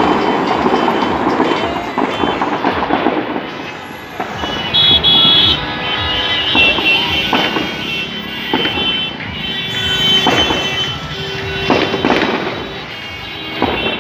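Din of a packed street crowd and jammed traffic: many voices, vehicle horns honking several times, and music mixed in.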